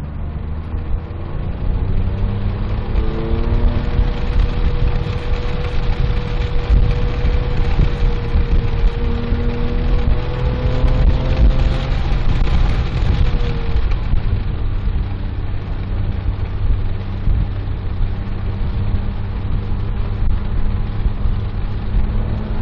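Porsche 997.1 GT3's 3.6-litre flat-six engine heard inside the cabin under hard acceleration: the pitch climbs in the first few seconds and holds high. About two-thirds of the way through it drops to a lower, steadier note as the car slows for a corner, with road and wind noise throughout.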